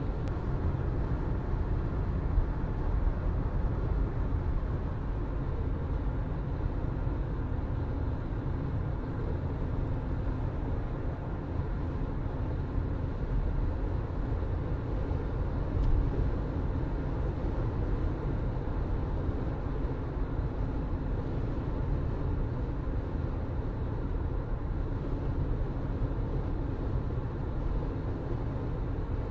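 A car driving steadily: a low engine hum under constant road and tyre rumble, with one brief light knock about halfway through.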